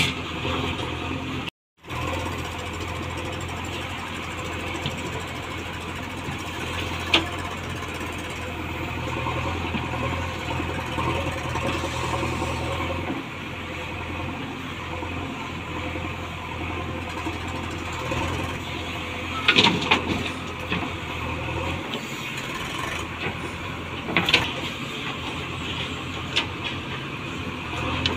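JCB 3DX Xpert backhoe loader's diesel engine running steadily as it digs soil and loads a trolley, with a few sharp knocks from the bucket and earth.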